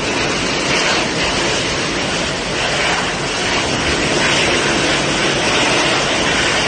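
Steady loud rushing of a heavy downpour and wind, mixed with the running jet engines of a taxiing airliner.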